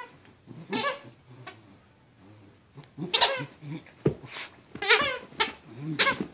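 Squeaker in a plush alligator toy squeaking in short, high, wavering bursts, several times, as a Pembroke Welsh corgi bites and shakes it.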